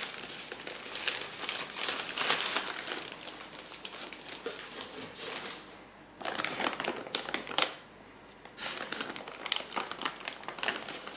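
Crinkling and rustling of a paper covering sheet and water-filled plastic fish-shipping bags being handled inside a polystyrene foam box, in irregular bursts with two short lulls, about six and about eight seconds in.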